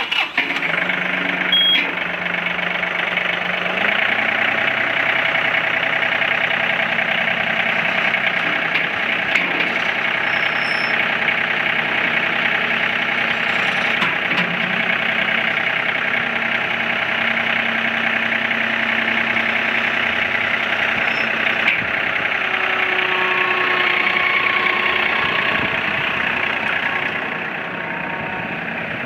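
Compact tractor's three-cylinder diesel engine running steadily, throttled up about four seconds in while the front loader bucket is worked. It gets quieter near the end as the tractor drives away.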